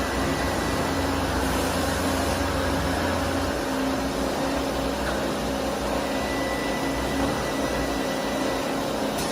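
Doosan MX-2100ST CNC multi-tasking lathe running under power, a steady whir and hum. The low part of the hum drops away about a third of the way in.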